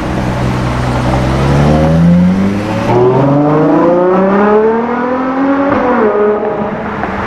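Sports car engine accelerating hard, its revs climbing, with an upshift about three seconds in and another near six seconds.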